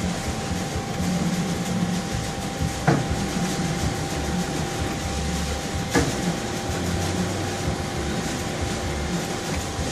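Knee elevation motor of a King Rich GMV-4 vertical mill running steadily as the knee is driven up and down, with two sharp clicks about three seconds apart as the contactors are pushed in to switch direction.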